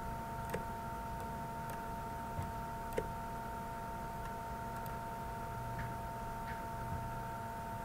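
A few scattered computer mouse clicks, the sharpest about half a second and three seconds in, over a steady electrical whine with several fixed pitches.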